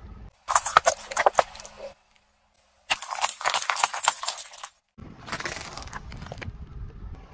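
A car tyre slowly rolling over small objects and crushing them, in three short bursts: first a run of sharp crackles and pops, then about two seconds of dense crackling and popping as a pile of water beads bursts under the tyre, then a softer crunch with a low rumble as a small tube is pressed flat.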